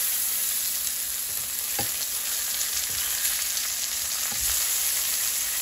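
Boneless pork chops sizzling steadily in oil in a nonstick frying pan, with a couple of light knocks from the spatula as the chops are turned over.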